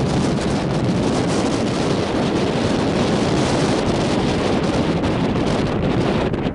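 Airbus A380's four Rolls-Royce Trent 970 turbofans on final approach: a steady, low rush of jet noise, mixed with wind on the microphone.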